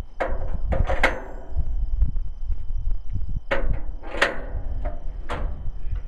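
A series of sharp knocks, each with a brief ring, in two groups: three within the first second or so, then three more from about three and a half seconds in, over a low steady rumble.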